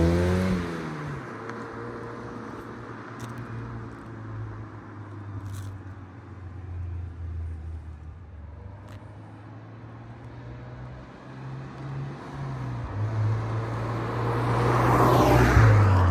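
Mazda MX-5 NC1 four-cylinder engine exhaust, through a catless header and Yonaka muffler: a rev that climbs and falls off just after the start, then lower steady running, swelling louder again near the end.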